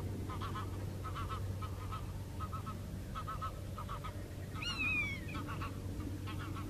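Animal calls in a marsh: short honking calls repeated in quick groups of two to four, with a single falling whistled call about five seconds in, over a steady low hum.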